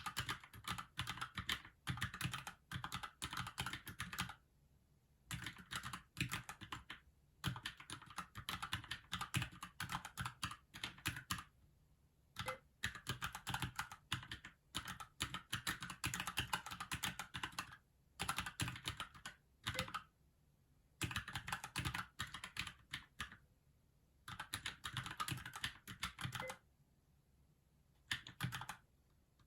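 Typing on a Keychron K6 mechanical keyboard: fast runs of key clicks broken by short pauses of about a second, several times over.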